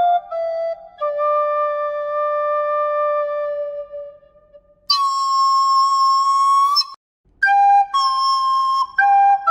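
Music: a solo flute-like wind instrument playing a slow melody of long held notes. Near the middle one higher, brighter note is held for about two seconds, then a brief pause before the melody goes on.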